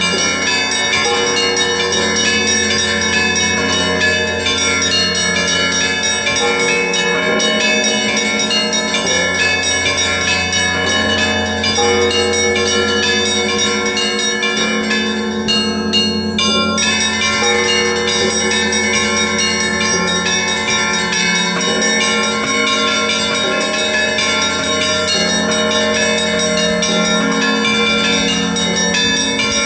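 Russian Orthodox monastery bells ringing together in a continuous peal: many bells of different pitches struck over one another, deep tones sounding under a dense pattern of higher bells.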